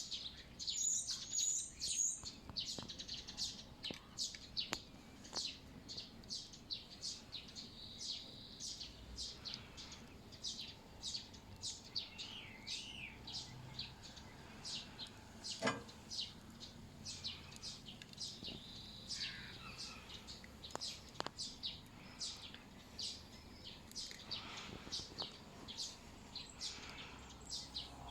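Small songbirds chirping and singing, many quick high notes repeated over and over. There is a single sharp click about halfway through.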